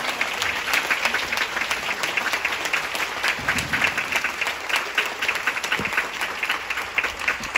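Concert-hall audience applauding, a dense, steady patter of many hands clapping.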